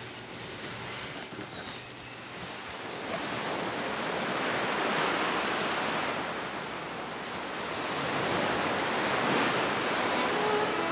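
Sea surf: waves breaking and washing up a sandy beach, the rush swelling a few seconds in, easing, then building again.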